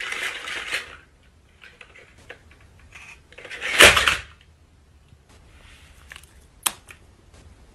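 A plastic toy dinosaur tips over and clatters onto a wooden floor about four seconds in, the loudest sound here. A single sharp knock comes near the end, with a little clattering in the first second.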